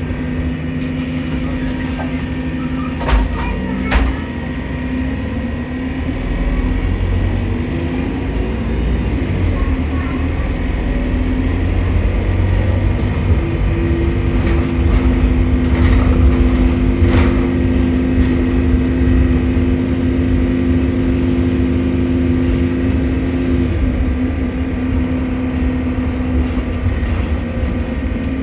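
A bus engine running under way, with a steady low drone and a faint high whistle that rises and then slowly falls: the strange noise of a leaking turbocharger. A couple of short knocks come a few seconds in.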